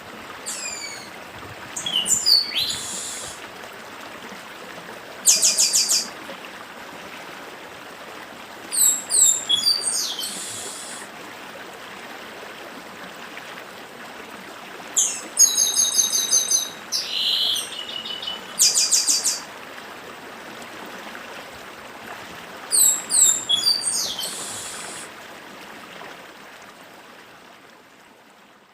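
Chestnut-capped blackbird (papa-arroz) singing in short phrases of sharp down-sweeping whistles and fast rattling trills, one phrase every few seconds, over the steady rush of a stream. The sound fades out near the end.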